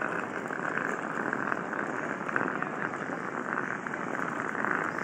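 Steady rushing outdoor noise of a crowd walking across airport tarmac, with no clear voices standing out.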